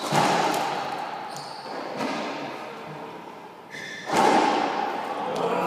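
Racquetball rally: three loud, echoing smacks of the ball off racquet and walls, about two seconds apart, the last and loudest about four seconds in. Sneakers squeak briefly on the hardwood court between them.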